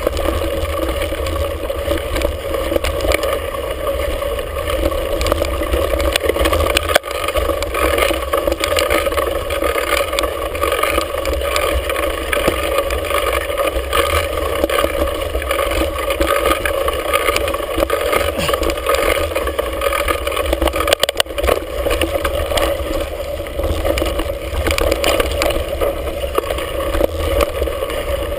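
Mountain bike descending a rough dirt singletrack, heard from a handlebar-mounted camera: a steady rumble of wind and tyres on the trail, with frequent clatter and knocks from the bike and its mount over bumps.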